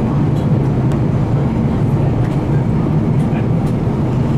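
Steady flight-deck noise of an Airbus A350-900 in flight: an even rumble of airflow and aircraft systems, strongest in the low range, with a few faint clicks.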